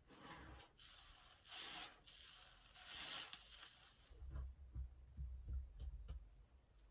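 A sponge full of foaming hand soap being squeezed and kneaded in the hands. It gives wet squelching, fizzing bursts over the first few seconds. After that come a few soft low thumps and small clicks.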